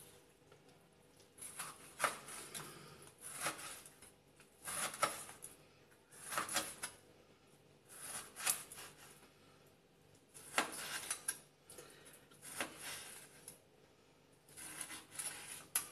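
Cleaver cutting raw pork belly into cubes on a wooden cutting board: short groups of blade knocks on the wood, with the slice through the meat, repeating every second or two.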